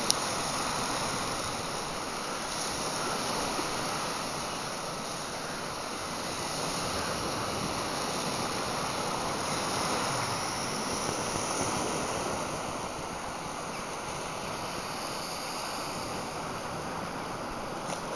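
Sea surf washing against rocks, a steady rushing hiss that gently swells and eases every few seconds, with some wind on the phone's microphone.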